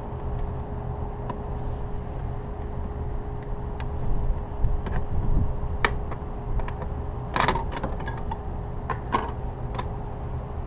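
Steady low background rumble with a faint steady hum, and scattered light clicks and knocks from a hand working inside a rooftop HVAC unit's open access panel, with a cluster of clicks about seven and a half seconds in.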